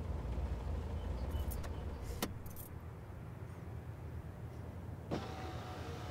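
Car keys jangling and clicking at the ignition, with several sharp clicks in the first three seconds over a low steady hum in the car cabin. About five seconds in comes another click, after which a faint steady high tone sets in.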